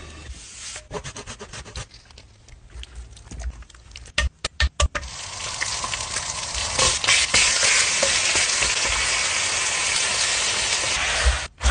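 A few sharp knocks of cookware about four seconds in, then food sizzling steadily in a hot nonstick frying pan: strips of bacon, then tomato slices under melting cheese.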